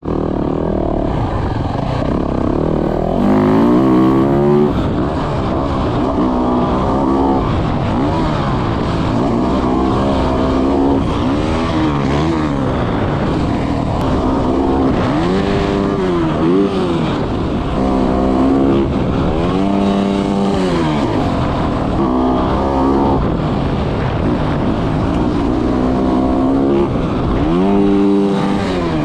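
Dirt bike engine being ridden, the revs rising and dropping again and again about every couple of seconds.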